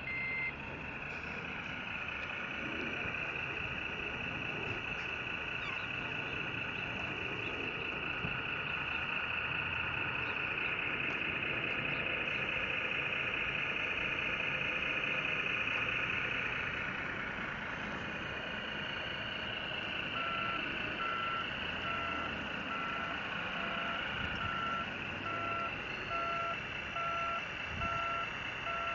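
Steady high whine from the electric drive and hydraulics of radio-controlled scale construction models as a CAT 963B track loader works. A model reversing beeper sounds about once a second from about two-thirds of the way in, and a few higher beeps end right at the start.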